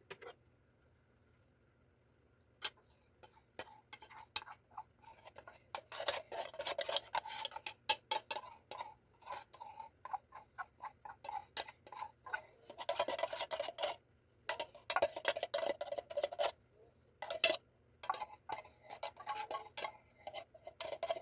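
Metal spoon scraping and tapping inside an opened tin can, scooping out the last of the thick sweetened condensed milk. Quiet for the first two seconds or so, then quick irregular scrapes and clicks, thickest around the middle.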